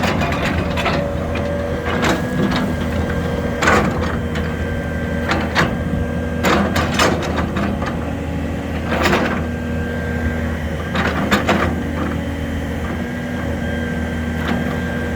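1996 John Deere 590D excavator running, with a steady low engine hum and a higher whine that comes and goes, and many sharp metallic clanks and knocks scattered throughout.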